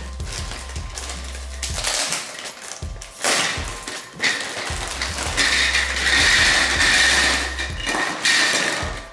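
A clear plastic bag crinkling and rustling in irregular bursts as it is pulled open and emptied of plastic marble-run track pieces, loudest a little past the middle.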